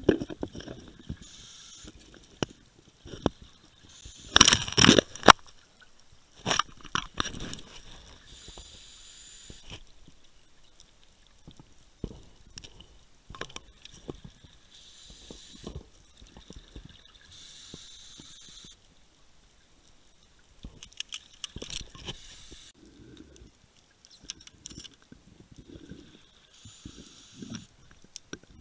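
Underwater sound of a scuba diver breathing through a regulator: hissing breaths and bubbling exhalations that recur every few seconds, with scattered clicks and knocks throughout. The loudest burst comes about four seconds in.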